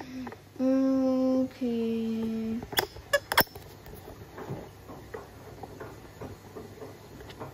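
Front-loading washing machine running a quick wash, the wet load tumbling with a faint irregular patter and swish. Near the start come two long, steady low tones, the second a little lower, then a few sharp clicks.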